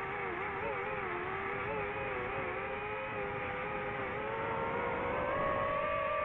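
DJI FPV drone's motors and propellers whining in flight. The pitch falls in the first second and rises again about two-thirds of the way through as the throttle changes.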